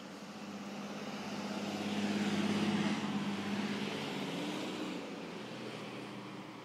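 A road vehicle passes by: its engine hum and tyre noise swell to a peak about two and a half seconds in, then fade away.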